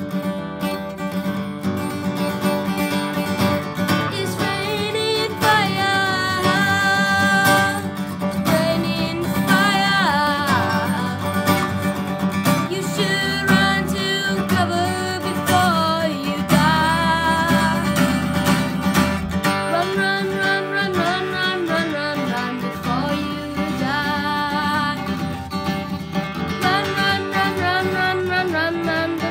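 Acoustic guitar strummed steadily in chords, with a boy singing phrases of a melody over it from a few seconds in.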